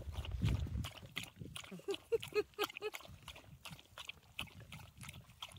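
Pembroke Welsh Corgi lapping water from a stainless-steel bowl: a quick run of short, wet lapping clicks.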